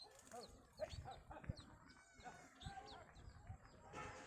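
Chickens calling: many short overlapping chirps and clucks, with a few dull low knocks among them.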